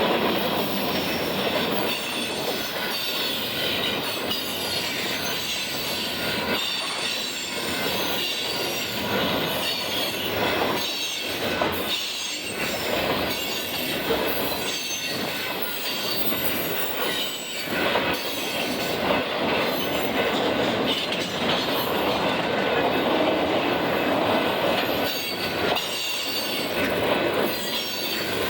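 Freight cars of a mixed freight train rolling past in a steady stream of rattling noise, with irregular clanks and clacks at the rail joints and some wheel squeal.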